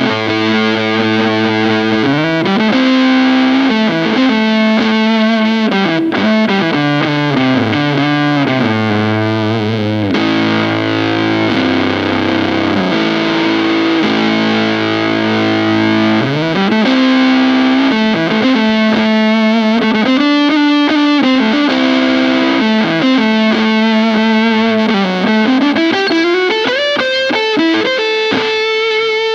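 Electric guitar played through a Bigeye fuzz pedal stacked with a Silverboost booster: heavily fuzzed, sustained notes and chords with several bends that slide the pitch up and down.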